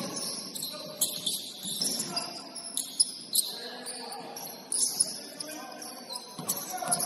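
Basketball game on an indoor court: sneakers squeaking on the floor in short high chirps, with sharp thuds of the ball and players' voices calling out.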